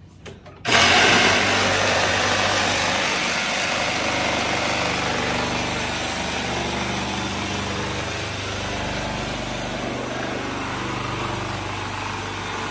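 A motor-driven machine running steadily, starting suddenly about a second in: a loud rushing noise over a low, steady hum that slowly fades a little.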